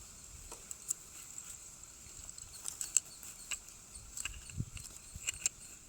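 Scattered light clicks and taps of small objects being handled, the sharpest about three seconds in, with a few soft low thumps near the end, over a faint steady high-pitched hiss.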